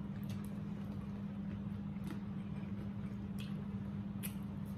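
Eating sounds: a few faint clicks and smacks of chewing fried chicken, over a steady low hum.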